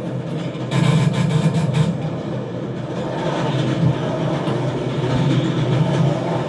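Film sound effects of doors rushing along overhead conveyor rails: a steady, train-like rumble with clattering clacks, thickest about a second in.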